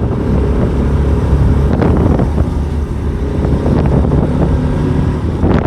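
Motorcycle engine running steadily on the move, with wind noise on the microphone.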